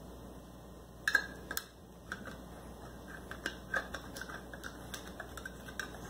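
P-38 can opener being rocked along the rim of a can, each cutting stroke a sharp metallic click. There are two louder clicks about a second in, then a run of lighter clicks at about three a second.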